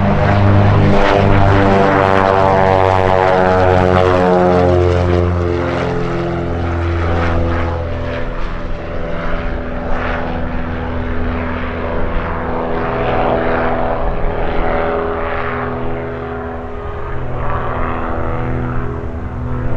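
Cessna O-2A Skymaster's push-pull twin piston engines and propellers passing low and climbing away. The engine note drops in pitch over the first few seconds as the aircraft goes by, then holds steadier and slowly fades with distance.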